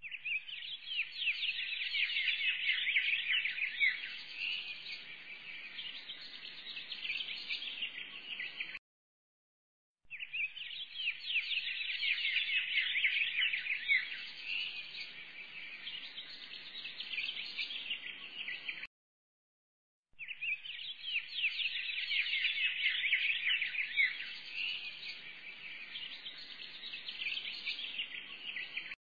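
Many small birds chirping and twittering densely, a birdsong recording laid on as a background track. The same stretch of about nine seconds repeats three times, cut by a short silent gap of about a second before each repeat.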